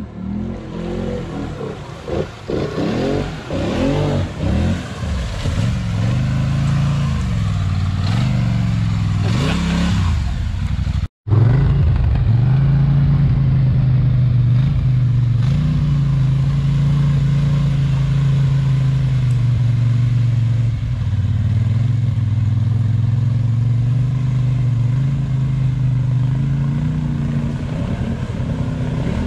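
ATV engine revving hard in quick repeated rises and falls. After a brief dropout about eleven seconds in, it holds steady at high revs to the end.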